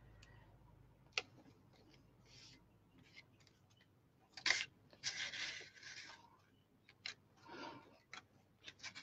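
Pieces of cardstock handled on a cutting mat: a sharp tap about a second in, then short paper rustles and scrapes in the second half, the loudest a tap-and-slide about halfway through.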